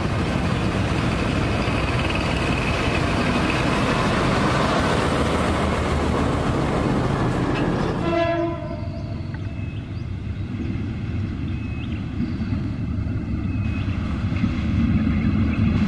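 Indonesian diesel locomotives: first a BB303 diesel running close by with loud, dense engine and rail noise. About eight seconds in the sound cuts to a BB203 hauling passenger coaches, which gives a short horn blast and then a steady low engine rumble as it approaches.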